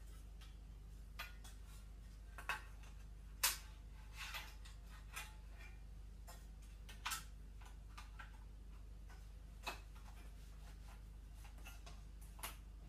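Irregular light clicks and taps of cable connectors and wires being handled and plugged back into an LCD TV's main board, the sharpest about three and a half seconds in, over a steady low hum.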